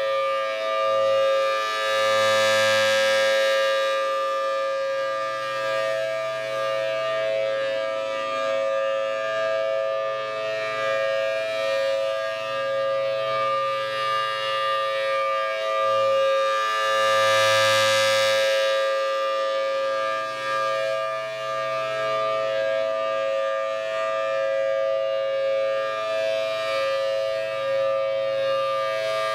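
Federal Signal Thunderbolt 1000T outdoor warning siren sounding its steady alert tone, a two-note chord held at one pitch. The sound swells twice, about fifteen seconds apart, as the rotating head sweeps past.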